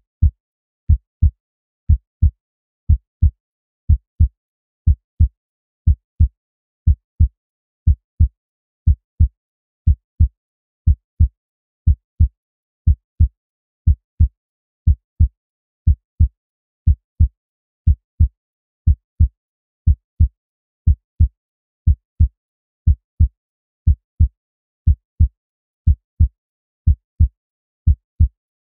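A heartbeat sound effect: a steady lub-dub of two deep thumps, repeating about once a second, with silence between the beats.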